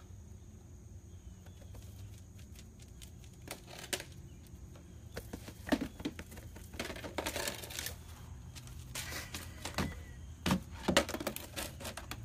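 Irregular rustling, scraping and light knocks as dogs grab at and drag a basket and blanket, getting busier after the first few seconds.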